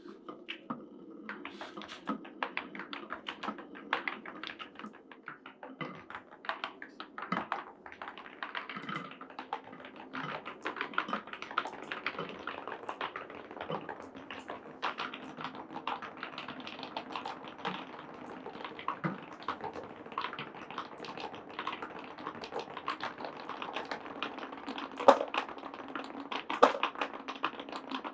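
Glass marbles rolling down a wooden marble run: a steady rolling rumble under many quick, irregular clicks and taps as the marbles strike the wooden track, with one sharper knock about 25 seconds in.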